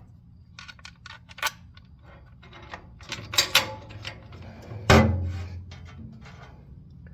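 Small metal parts clicking and clinking as a gas pedal and its bolts are fitted to the pedal box bracket, with a sharper knock about five seconds in.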